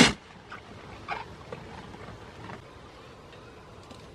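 A single sharp knock right at the start, followed by a few faint clicks over the next couple of seconds.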